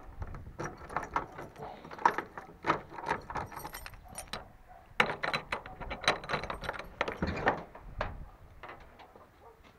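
A bunch of keys jangling and clinking against a padlock as it is unlocked and taken off a shed door, a rapid run of small metal clicks that stops about eight and a half seconds in.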